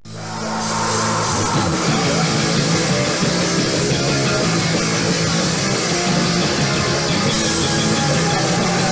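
Live punk rock band playing loud, with electric guitar; the sound rises out of silence in the first moment and then runs at full volume.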